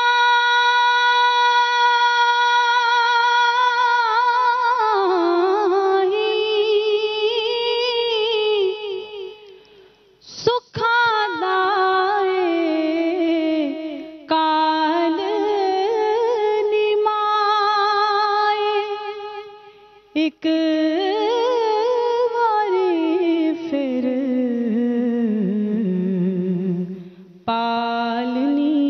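A woman singing a Punjabi naat unaccompanied into a microphone: one long held note at first, then slow ornamented phrases with a wavering pitch, broken by short pauses for breath several times.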